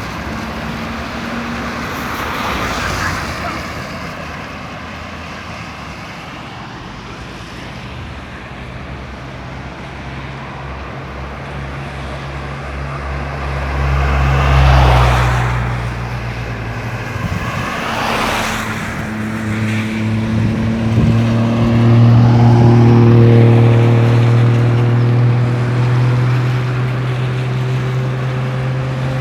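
Road traffic: several vehicles pass close by with rising and falling tyre and engine noise, the loudest passes about halfway through. A heavy vehicle's engine runs with a deep steady hum through the last part.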